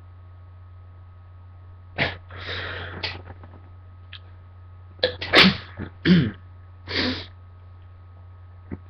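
A woman sneezing several times in a row, with sharp breaths between. The sneezes start about two seconds in, and the loudest come a little past halfway.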